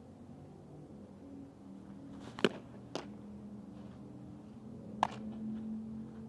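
Sharp pops of a softball smacking into a leather glove: a loud one about two and a half seconds in, a softer one half a second later and another loud one near the five-second mark, over a steady low droning hum.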